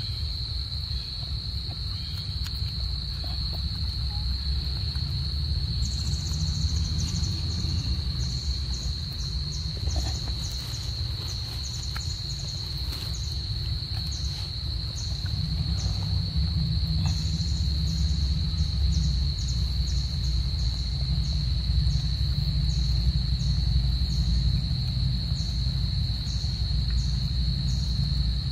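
Insects calling: one holds a steady, high-pitched drone throughout, and about six seconds in a second joins with regular, higher chirps, one or two a second. A low rumble runs underneath.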